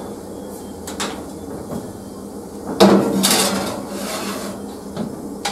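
An aluminium baking tray being slid into a gas oven: metal clunks and scraping of the tray against the oven and its rack, loudest from about three seconds in, with single knocks near one second in and near the end.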